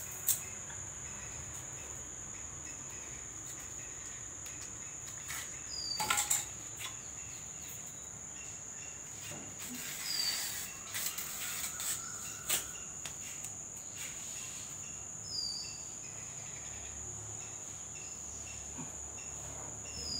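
Steady high-pitched drone of insects, with a short chirp about every five seconds. A few brief taps and rustles of handwork at the door frame, the sharpest just after the start and about six seconds in.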